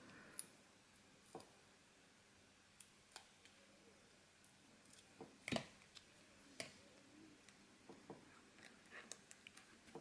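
Faint, scattered clicks and taps from handling small paper cutouts and foam adhesive pads on a craft table, the sharpest click about five and a half seconds in.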